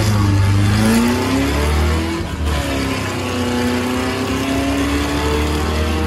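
Supercharged 1915 cc air-cooled VW flat-four engine pulling the buggy under acceleration. The revs climb, drop briefly about two seconds in as a gear is changed, then climb again.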